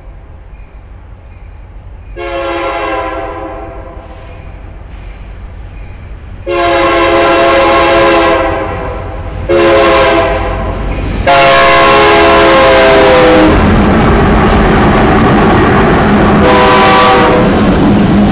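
Diesel freight locomotive air horn sounding a series of blasts as the Union Pacific-led train approaches, the last long blast dropping in pitch as the lead unit passes. Then the loud, steady rumble of the multiple diesel locomotives going by close at hand, with one more short horn blast near the end.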